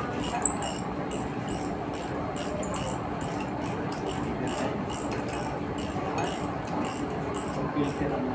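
Hand wrench working the bolts on a steel filter tank's fitting: an even run of light metallic clicks, about three or four a second, over a steady low hum.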